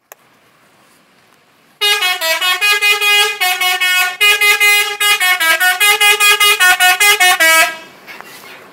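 Bus 'telolet' musical horn playing a quick tune of short rapid notes that step up and down in pitch. It starts about two seconds in and cuts off near the end.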